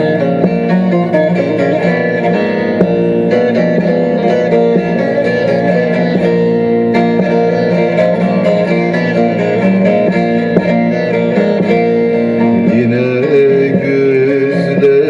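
Music: a plucked string instrument plays a melody in an instrumental passage of a Turkish song.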